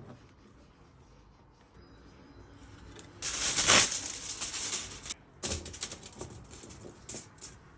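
Aluminium foil crinkling as it is handled: one long rustle about three seconds in, then a string of short crackles.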